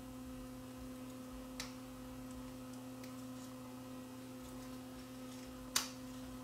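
Steady electrical hum with a higher overtone, under small handling clicks as a chip is pressed into its socket on a circuit board: a faint tick about one and a half seconds in and one sharp click near the end.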